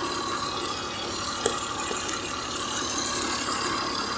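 Maruti 800's three-cylinder carbureted petrol engine idling steadily when warm, with a few light clicks. The owner judges its mixture lean from a white spark plug.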